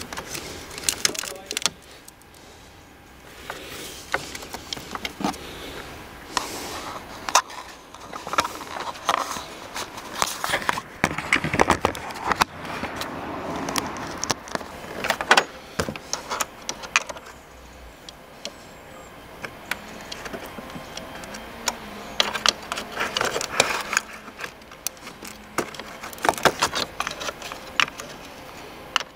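Metal tools clinking and rattling against car battery terminal clamps as a spanner is worked on the terminal nuts: irregular sharp clicks, busier in a few stretches.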